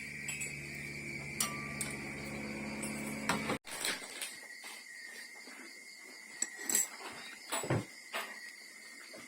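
Scattered clicks and knocks of utensils and dishes being handled, over a steady high insect drone. A low hum in the first few seconds cuts off suddenly.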